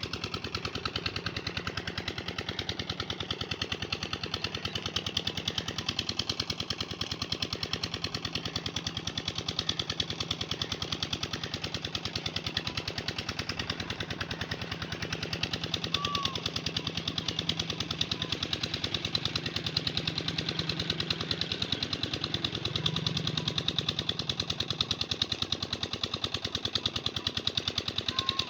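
A small engine running steadily with a rapid, even knocking beat.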